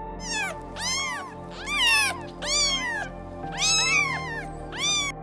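Domestic cat meowing, about six meows in a row, each call rising and then falling in pitch.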